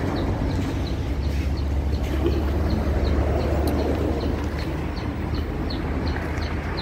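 Diesel truck engine running with a steady low rumble.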